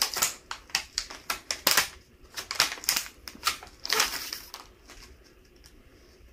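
Clear plastic packaging crinkling and crackling as it is pulled and torn open, a rapid irregular run of sharp crackles that dies away about four and a half seconds in.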